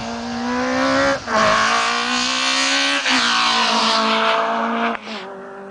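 Renault Clio rally car's engine at full throttle as it passes close by, its pitch climbing through the gears. It shifts up about a second in, again at about three seconds, and near the end, after which it goes quieter as the car moves away.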